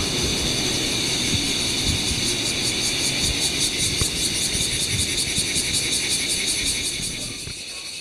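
A chorus of cicadas buzzing: a dense, steady high drone with a fast, even pulse. Low, gusty wind rumble on the microphone lies underneath.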